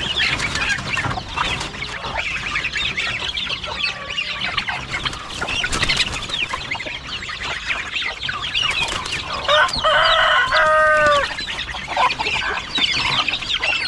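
Poultry calling: many short, high peeps from chicks and young fowl with chickens clucking throughout, and a rooster crowing once about ten seconds in, the crow falling in pitch at its end.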